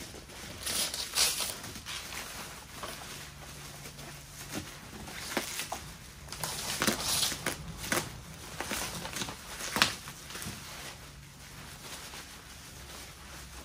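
Plastic bags and paper packaging rustling and crinkling in irregular bursts as clothing is pulled out and handled. A sharp tap stands out about ten seconds in.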